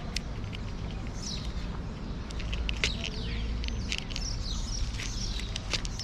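Birds chirping in short, falling calls, repeated several times, over the crisp crunching clicks of a cat chewing dry kibble close by.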